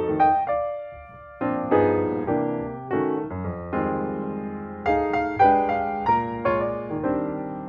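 Background piano music: a melody of separate struck notes, each fading after it sounds.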